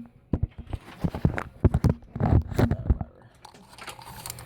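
Plastic clicking, knocking and rubbing as the rear dust cap of a car headlight housing is twisted and pulled off by hand to reach the bulb.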